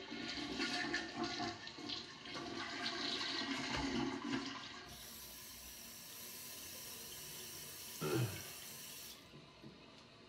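A toilet flushing, with about five seconds of rushing water giving way to a steadier hiss. A sharp falling sweep comes about eight seconds in.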